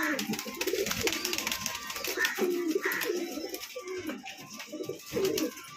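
Domestic pigeons cooing, several birds calling over one another in short repeated coos.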